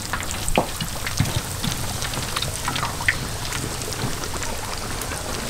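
Battered chicken pieces being added to hot oil in a large wok, the oil sizzling steadily with many scattered crackles and pops.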